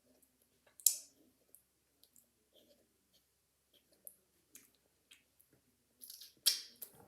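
Quiet mouth sounds and handling of a Brain Licker roll-on sour candy being licked, with a sharp click about a second in and a brief cluster of louder clicks and rustling near the end.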